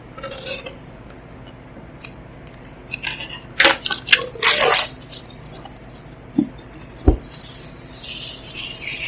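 Packaging being handled and unwrapped: crackling and rustling in bursts, two light knocks about six and seven seconds in, then a longer scraping rustle near the end.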